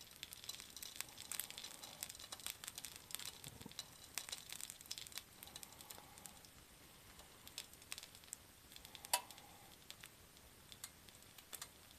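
Frozen shrimp shumai sizzling faintly on an electric hot plate as their bottoms crisp, with a scatter of small irregular crackles and one sharper pop about nine seconds in.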